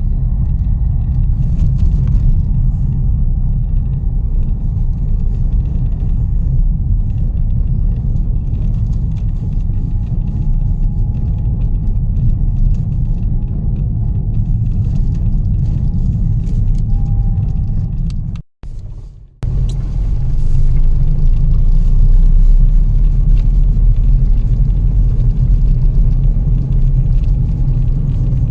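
Strong blizzard wind buffeting the microphone: a loud, gusting low rumble. It drops out abruptly for about a second some two-thirds of the way through, then comes back slightly stronger.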